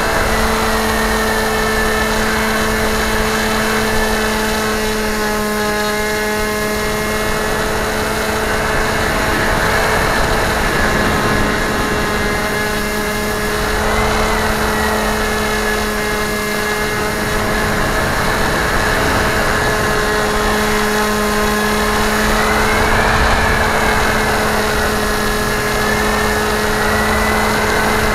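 Model aircraft's motor and propeller running steadily at a constant pitch, heard from a camera mounted on the aircraft, with wind rush behind it. The whine briefly rises and falls about fourteen seconds in and again about twenty-three seconds in.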